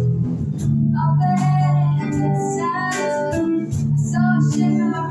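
A girl singing into a microphone while strumming an acoustic guitar, backed by a bass guitar, in a live band performance.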